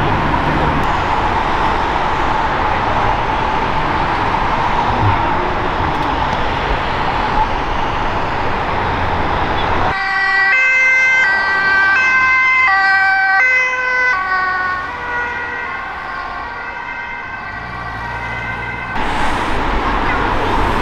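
Steady road-traffic noise, then about halfway through an ambulance's two-tone siren alternates between a high and a low pitch as the ambulance drives off, fading over several seconds. The siren stops abruptly near the end, when the steady traffic noise returns.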